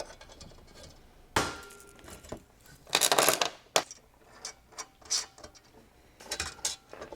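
Washers and nuts clinking as they are picked up, dropped onto and started by hand on carriage bolts: a scatter of small metallic clicks, with a louder rattle about three seconds in.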